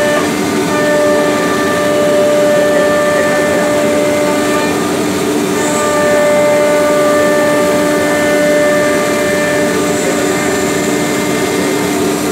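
Holztek CNC router running, its spindle giving a steady high whine over the rushing of the dust extraction while it cuts a cabinet panel. The whine breaks off briefly twice, about half a second in and near the middle.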